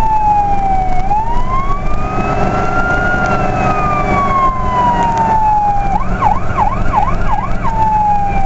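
Fire truck siren sounding a slow wail that rises and falls, switching to a fast yelp for about two seconds near the end, over the truck's engine and road noise, heard from inside the cab.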